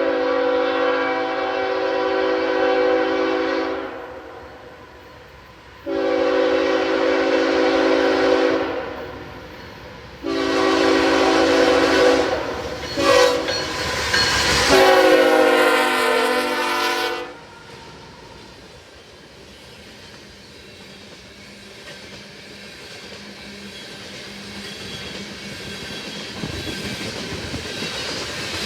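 Diesel freight locomotive's multi-chime air horn sounding a series of blasts: two long ones, a shorter one, a brief toot, then a final long blast. After the horn stops, the rumble of the approaching freight train slowly grows louder.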